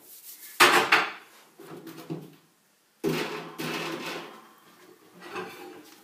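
Clattering and knocking of handled equipment: two loud sudden hits, about half a second in and again at three seconds, each followed by ringing clatter.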